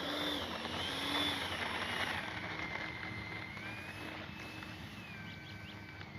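The 70 mm electric ducted fan of an E-flite F-16 RC jet whining in flight, its pitch sliding down and up again as the jet passes and the throttle changes, growing slowly fainter.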